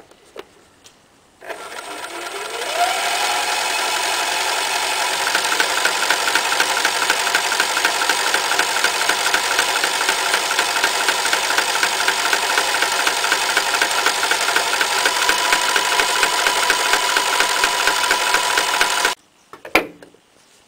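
Toyota 9060 electric sewing machine stitching a row of decorative stitches through denim: the motor starts with a rising whine about a second and a half in, runs steadily with a fast even rhythm, and stops abruptly near the end, followed by a short click.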